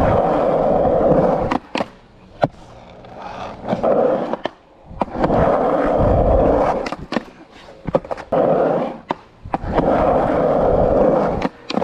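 Skateboard wheels rolling on skatepark ramps in several swelling runs, broken by a handful of sharp clacks of the board striking.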